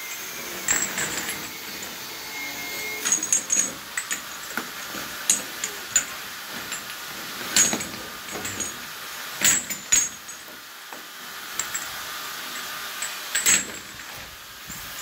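Galvanised iron pipe fittings clinking and knocking against one another as they are handled and dropped in, a dozen or so sharp metallic clicks at irregular intervals.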